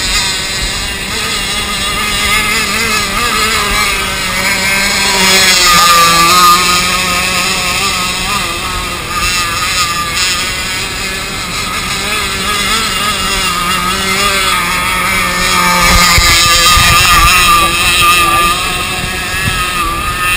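Radio-controlled model boat's motor running at speed, its pitch wavering and rising and falling, louder about six seconds in and again around sixteen seconds.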